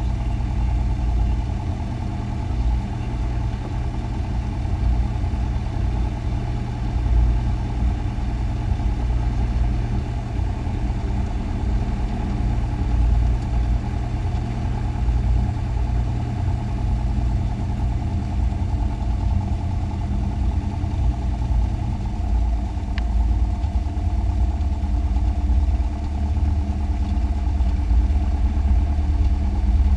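Cessna 172's single piston engine and propeller running steadily at low taxi power, heard from inside the cabin.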